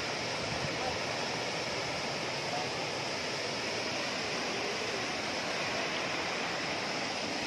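Waterfall running high with muddy floodwater, a steady rush of water pouring down a rock chute.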